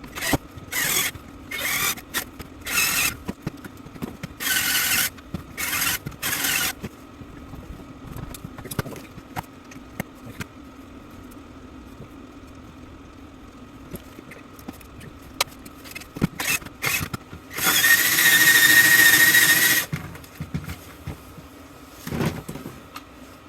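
Metal parts of a die-cast aluminium fire alarm bell being worked apart with tools: six short squealing, scraping bursts, then scattered clicks, then one louder burst of about two seconds with a steady whine about three-quarters of the way through.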